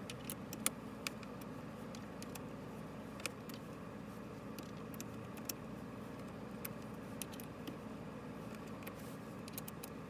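Small metal clicks and ticks from an Allen key turning the clamp bolts of a steering-wheel spinner knob, scattered irregularly over a steady low hum inside a car cabin.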